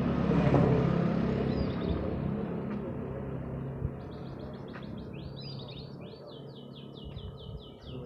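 A passing motor vehicle's engine swells and fades over the first few seconds. Then, from about halfway through, a domestic canary sings a fast run of repeated high falling notes, several a second.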